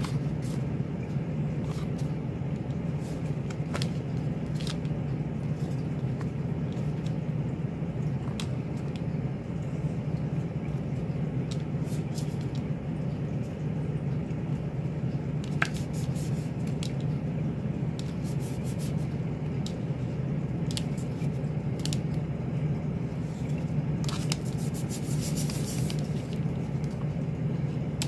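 A steady low hum throughout, with scattered light ticks and a brief rustle near the end as sheets of watercolour paper are handled against a plastic lid.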